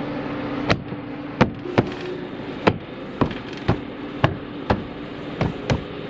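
A Nissan Sentra's inner door trim panel being tapped on by hand: about ten sharp knocks, roughly one every half second, as its plastic clips are pushed into the door.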